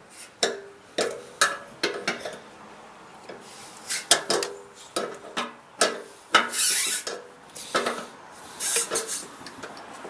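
Steel combination wrench clinking and scraping on a 14 mm fitting at the generator's fuel valve under the tank as it is turned loose: a string of irregular sharp metallic clicks, each with a short ring, about one or two a second.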